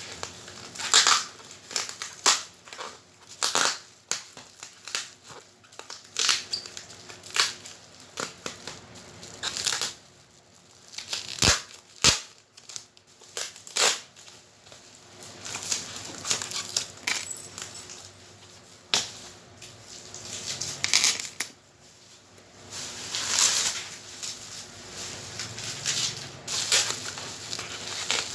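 Packaging being handled during an unboxing: irregular bursts of rustling, crinkling and tearing, with a couple of short low bumps near the middle.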